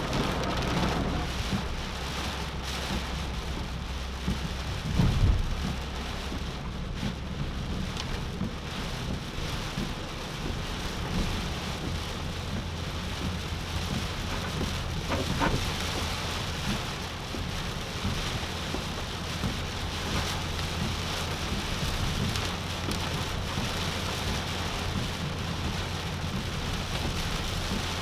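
Heavy tropical-storm rain pelting a car, a steady hiss over a continuous low rumble, with one loud low thump about five seconds in.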